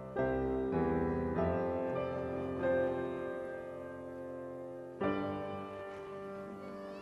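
Gentle background piano music: sustained chords, each struck and left ringing, with a new chord about five seconds in.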